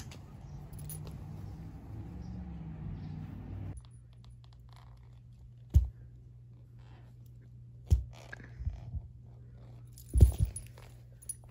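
Metal tag and leash clip on a puppy's collar jingling and clinking as it moves about, with three sharp knocks spaced about two seconds apart. A steady low hum runs under the second part.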